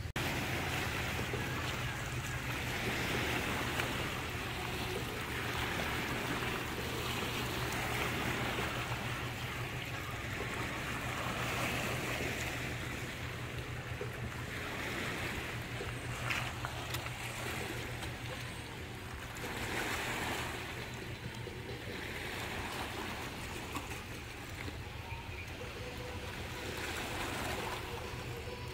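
Small waves washing onto a rocky shoreline, swelling and fading every few seconds, over a steady low hum.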